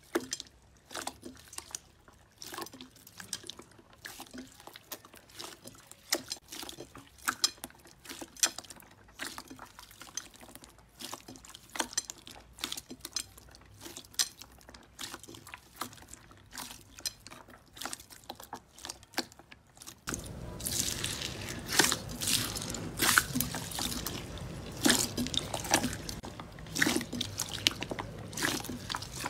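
Hands squishing and pressing clear, bubbly slime, making a quick stream of small wet pops and clicks as air pockets burst. About twenty seconds in, a wetter slime takes over: louder, with a steady hiss under the popping.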